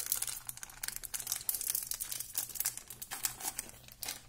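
Cardboard hockey trading cards being handled and sorted by hand: a dense, irregular run of small clicks and rustles as the card stock rubs and snaps.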